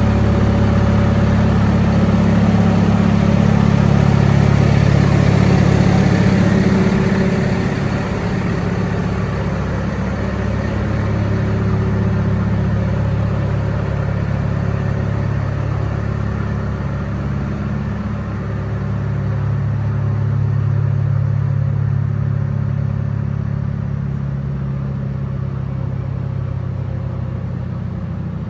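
John Deere 6110R tractor's diesel engine running steadily, a little louder for the first several seconds, then settling.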